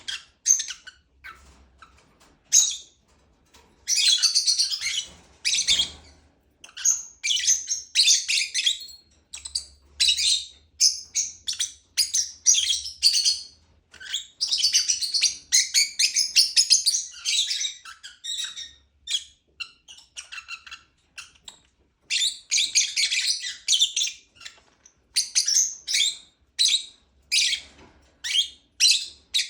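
Lovebird chirping: rapid runs of short, high, shrill chirps in bursts of a second or two, broken by brief pauses.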